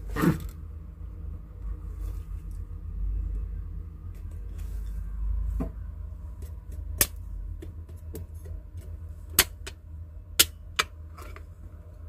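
Eastern Hermann's tortoise moving about on a plastic feeding tray: a loud knock at the start, then from about halfway on a scatter of sharp clicks and taps on the plastic, over a low rumble.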